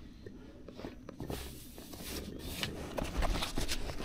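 Faint rustling and scattered light knocks from a bass being held down on a plastic measuring board, getting busier near the end.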